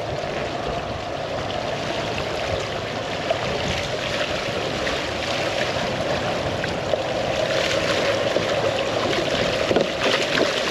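Wake water rushing past the stern of a boat under way, over the steady drone of twin outboard motors at trolling speed. Near the end, splashing as hooked bonitas thrash at the surface beside the boat.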